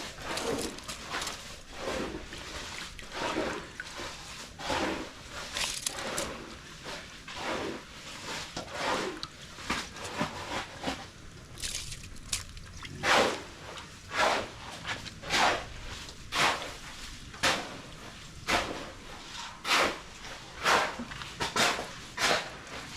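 Rice being washed by hand in a basin of water, swished and rubbed in short strokes about once a second. This is the second rinse of the rice.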